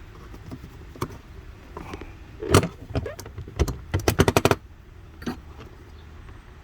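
Hand tools and parts being handled on a motorcycle's rear fender: scattered knocks and clicks, a louder knock about two and a half seconds in, then a quick run of about eight clicks around four seconds in.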